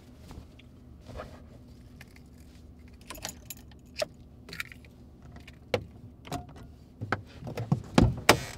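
Keys jangling with scattered clicks and rattles inside a car, then a heavy thump near the end.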